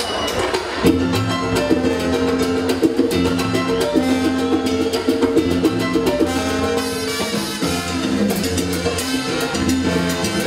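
Live salsa band starting a song: trombones, timbales and congas come in together about a second in and play on at full strength with a dense, driving rhythm.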